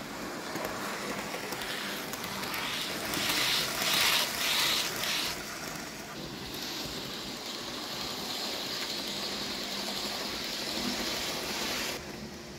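Hornby OO gauge class 390 Pendolino model train running on the track: a steady whir of its motor and wheels. It grows louder with a pulsing rattle for a couple of seconds about three seconds in, carries a higher steady whine from about six seconds, and drops away abruptly near the end.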